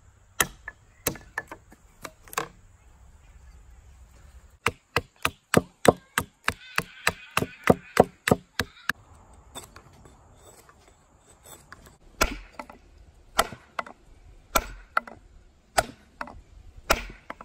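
Hand-held axe head chopping and knocking into wood on a chopping stump, splitting out a wooden wedge: a series of sharp woody knocks. There are a few single strikes at first, then a fast run of about four or five a second, then slower strikes about once a second near the end.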